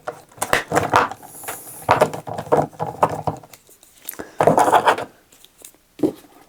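Irregular clicks, taps and rattles of hard parts being handled as a screwdriver works the screws on the Stream Deck+ XLR dock.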